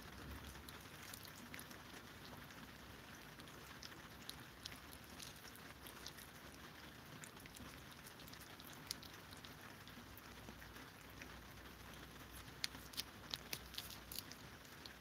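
Cats licking INABA Churu purée treats from squeezed tubes: soft, irregular wet tongue clicks and smacks, coming thicker near the end, over a faint hiss.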